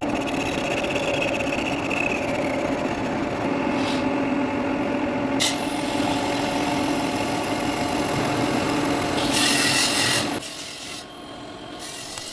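Lathe running with a cutting tool scraping along a turning workpiece, a steady hum under the rasping cut. It grows louder and hissier about nine seconds in, then drops away sharply about ten and a half seconds in.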